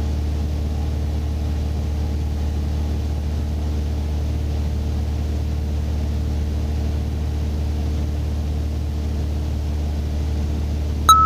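Steady drone of the Mooney's piston engine and propeller heard inside the cabin, holding even power on final approach. Just before the end, a high beeping tone with short breaks starts: the middle marker beacon signal.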